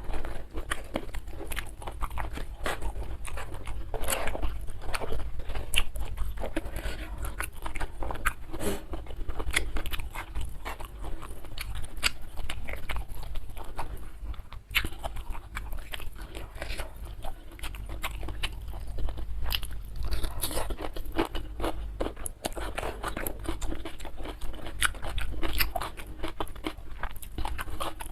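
Close-miked chewing and biting of crunchy food: a dense, irregular run of crisp crunches, crackles and wet mouth sounds.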